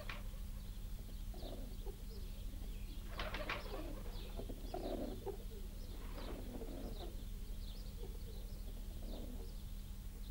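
Pigeons cooing in short calls every second or two, with small birds chirping faintly and a steady low hum underneath.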